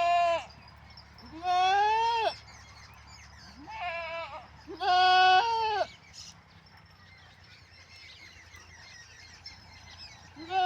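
Goats bleating: four drawn-out, arching bleats in the first six seconds, the last of them the loudest, then a quiet stretch until another bleat begins at the very end.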